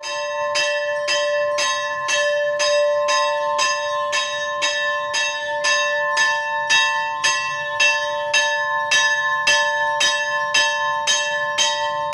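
Large temple bell rung by pulling its rope. The clapper strikes in a steady rhythm about twice a second, and the bell keeps ringing between strikes.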